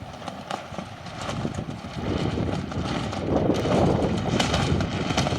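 Gusty storm wind buffeting the microphone as a low rumbling rush that builds about a second in, with scattered sharp snaps.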